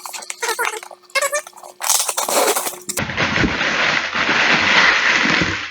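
Rustling and crinkling of the keyboard's cardboard box and packaging being opened by hand, from about three seconds in, with a few soft knocks. Before that, an indistinct voice-like sound with wavering pitch.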